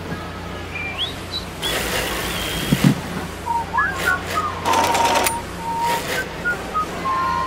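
Workers whistling a tune in short phrases, with held notes and quick upward slides. Between the phrases come two bursts of machine hiss and a few sharp clicks, over a steady low machinery hum.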